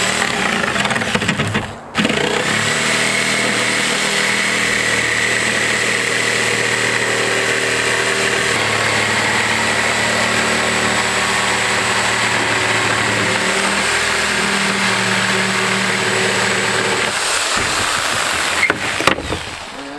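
Corded circular saw ripping a long cut through a sheet of plywood. The motor starts with a steady whine and stops briefly just before two seconds in. It then runs steadily under load for about fifteen seconds and winds down as the cut finishes, followed by a knock as the offcut falls.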